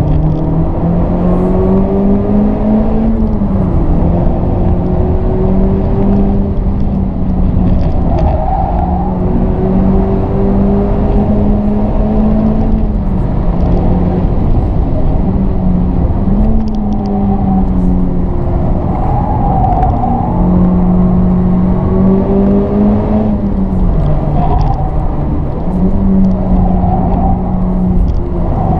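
Honda Civic Type R FK8's 2.0-litre turbocharged four-cylinder engine, heard from inside the cabin, pulling hard at high revs on track. Its pitch holds high and level, then dips sharply four times.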